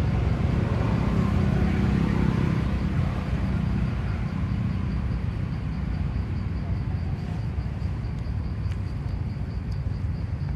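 Low rumble, strongest at first and slowly fading, with a faint steady high tone and a few light clicks in the second half.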